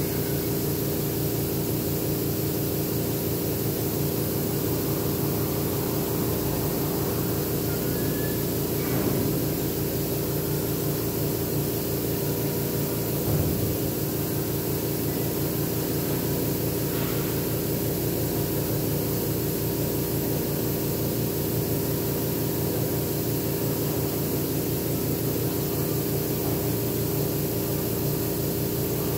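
Air compressor running steadily for an airbrush: a constant motor hum with a fast, even pulse underneath.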